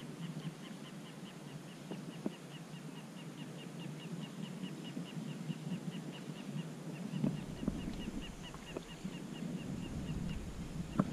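Outdoor ambience: a steady, high, rapid ticking, about five ticks a second, over a low wind rumble on the microphone that grows stronger about seven seconds in.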